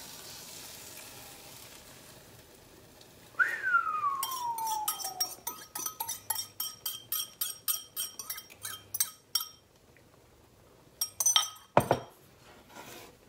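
Wire whisk clinking against a glazed ceramic bowl, a quick run of clinks about three or four a second. The first strike rings with a tone that falls in pitch. Faint frying sizzle from the egg in the pan at first, and a few more clinks near the end as the bowl with the whisk in it is set down on the wooden board.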